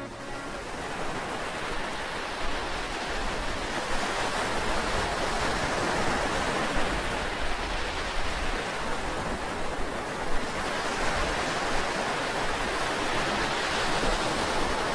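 Ocean surf washing onto a sandy beach: a steady rushing of small breaking waves, swelling slightly in the first few seconds.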